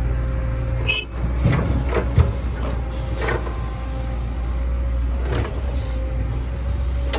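Heavy diesel machinery running steadily with a low drone and a steady whine, with several sharp metallic clanks and knocks over the first five and a half seconds.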